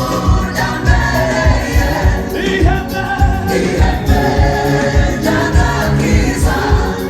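Gospel choir singing in harmony with a band, over a steady drum and bass beat of about two thumps a second.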